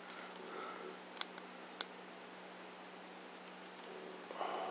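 Two short clicks about half a second apart as the small tactile push buttons on a circuit board are pressed, over a faint steady hum.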